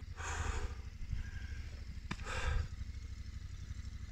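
Motorcycle engine idling with a low, fast-pulsing rumble, with two brief louder surges, one near the start and one about two and a half seconds in.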